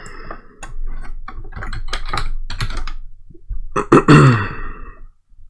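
Typing on a computer keyboard: a quick run of keystrokes as a text label is retyped. About four seconds in comes a short wordless vocal sound, the loudest moment.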